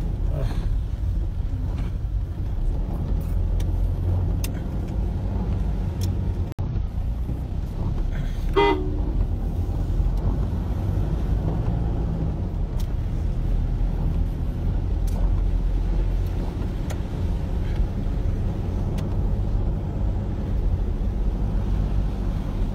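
Steady engine and road rumble of a moving vehicle heard from inside its cabin, with a single short horn toot about eight seconds in.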